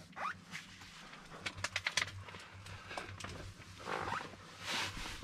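Birds calling: a quick rising call near the start, then a fast run of sharp clicking notes, and more calls near the end.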